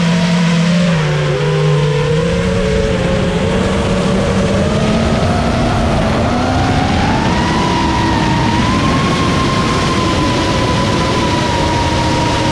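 FPV racing quadcopter's brushless motors whining in flight, heard from a camera on the drone over a steady rush of wind. The pitch dips briefly, climbs steadily through the middle as the throttle comes up, then holds high.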